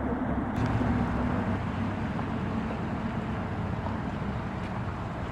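Steady low rumbling background noise, with a faint hum that fades out a second or so in.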